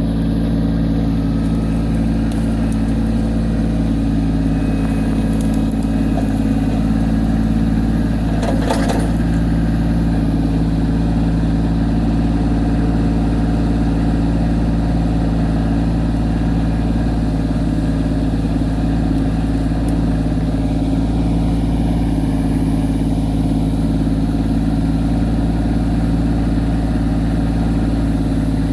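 Kubota B2601 compact tractor's three-cylinder diesel engine running steadily, with one brief knock about nine seconds in.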